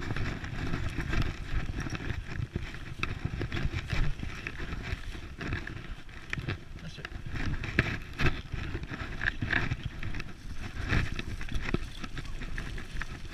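Dog scooter rolling and rattling over a bumpy dirt trail, with frequent knocks and jolts over a steady rushing noise.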